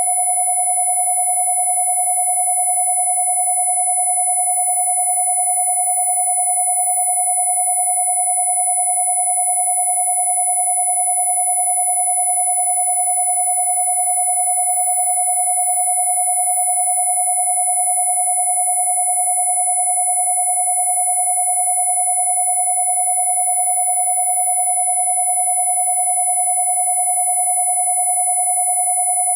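Two steady electronic tones sounding together without change: a mid-pitched tone at 727 Hz, the loudest, and a very high tone at 10,000 Hz.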